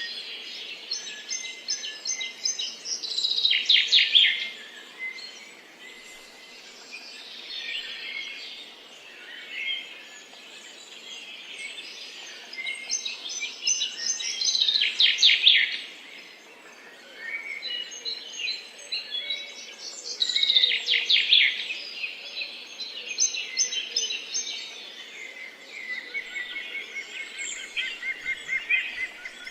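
Several songbirds chirping and singing. A louder song phrase of rapid repeated notes comes three times, about 3 s, 14 s and 20 s in, over a constant background of softer chirps and a faint outdoor hiss.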